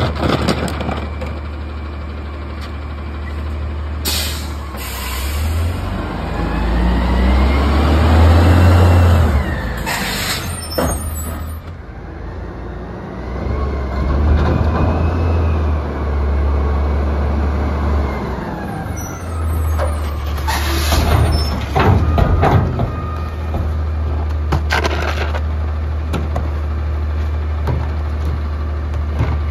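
Autocar Xpeditor natural-gas garbage truck with a Heil Odyssey front-loader body: the engine running, revving up and down twice, with several sharp air-brake hisses.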